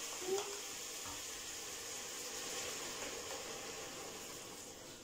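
Steady low hiss of room tone, with a brief faint sound about a third of a second in.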